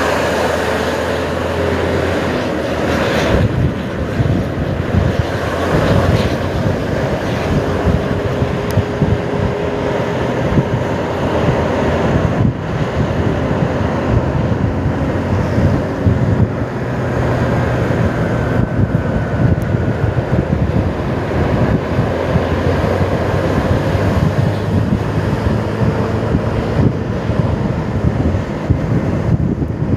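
Wind buffeting the microphone of a moving vehicle, with road and engine noise underneath, steady and loud throughout.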